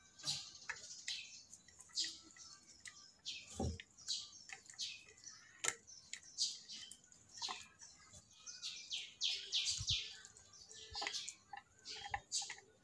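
Small birds chirping busily, a steady run of short, high notes, with a couple of soft low thumps about a third of the way in and again near three-quarters.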